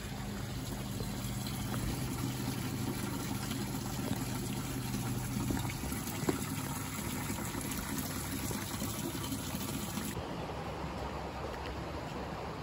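Hot spring water running steadily through a stone channel.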